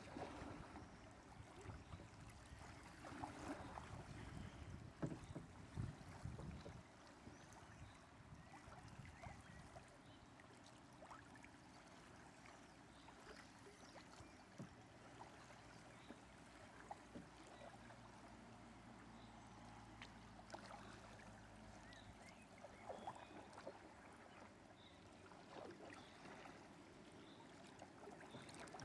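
Faint river water trickling and lapping around a canoe, with a few louder irregular bursts in the first several seconds before it settles to a steady low wash.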